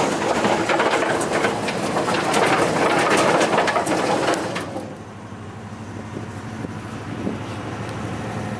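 Wood chipper chipping branches: a loud, dense crackle of wood snapping and splintering over the running machine. About four and a half seconds in the crackling stops and the chipper keeps running more quietly and steadily.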